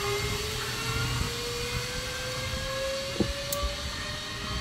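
Zipline trolley pulleys whirring along the steel cable, a whine that climbs slowly in pitch as the rider picks up speed. A steady rush of wind noise runs under it, and there is a short click about three seconds in.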